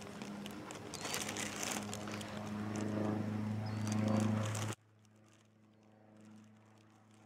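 A steady engine drone that grows louder, along with rustling and crackling. Both cut off abruptly about two-thirds of the way through, leaving only a faint hum.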